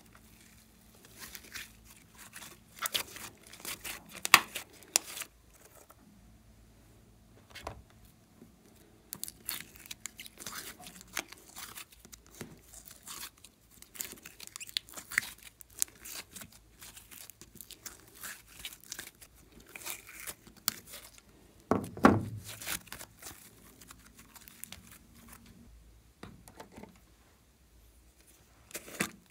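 Hands squeezing, stretching and pulling apart glossy slime: sticky crackling, popping and tearing sounds that come in irregular runs. A louder thud comes about two-thirds of the way through.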